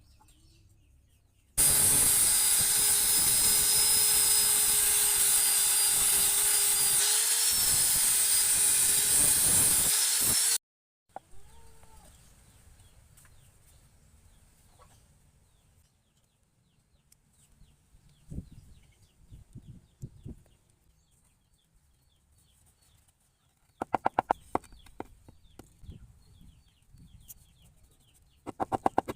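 Electric power grinder running loudly for about nine seconds, its pitch dipping briefly under load as it works the steel blade. It starts and stops abruptly. Chickens cluck in the quieter stretch that follows.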